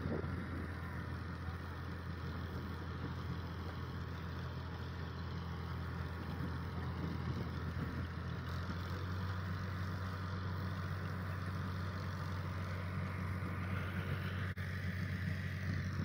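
Tractor engine running steadily at an even speed, a low constant hum.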